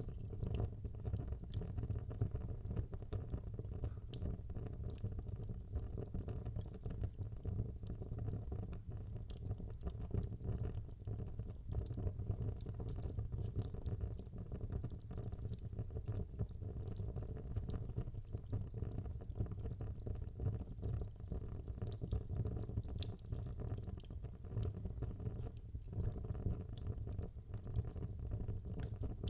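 Wood fire burning in a fireplace: a steady low rumble of flames with frequent small crackles and pops from the burning logs.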